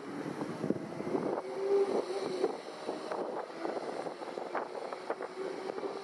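Strong wind buffeting the microphone over the running water of a shallow stream, with a brief faint steady hum about two seconds in.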